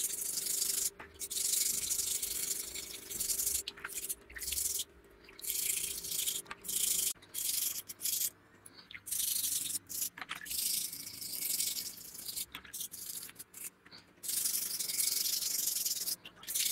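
Rusty sword blade being scrubbed by hand to strip loosened rust, a rough scratchy rubbing in quick runs of strokes with short breaks between them.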